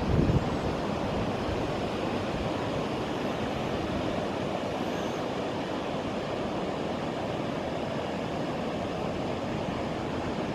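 Steady noise of surf breaking on a sandy beach, mixed with wind on the microphone; a gust buffets the microphone right at the start.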